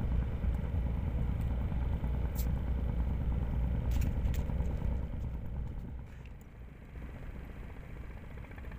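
A motor engine running with a low rumble that fades away after about five seconds, with a few faint clicks.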